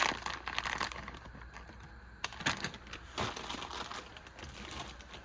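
Hands handling small items: irregular light clicks and tapping with some crinkling rustle, with a few sharper clicks about two and a half and three seconds in.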